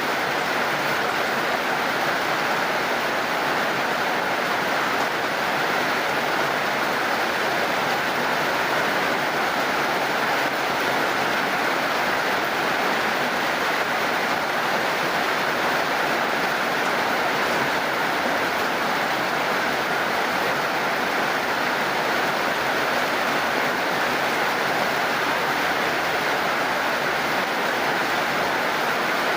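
Heavy rain falling steadily, an even rushing hiss with no single drops or thunder standing out.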